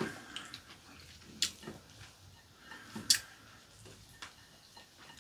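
Chopsticks clicking against ceramic plates and bowls while people eat: a few sharp, separate clinks, the loudest about three seconds in, between soft eating sounds.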